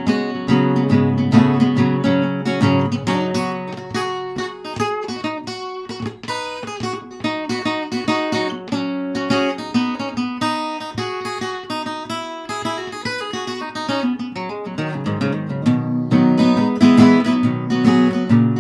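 Acoustic guitar playing an instrumental break between sung verses, with quick strummed chords and picked notes and no singing.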